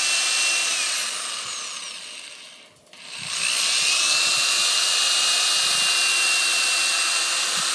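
Power drill boring a pilot hole into wood: the motor runs, winds down and stops about two and a half seconds in, then spins up again and runs steadily. The going is tougher through a knot in the wood.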